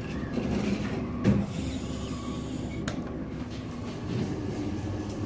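Passenger elevator running: a steady low hum and rumble, with a knock about a second in and a sharp click near three seconds.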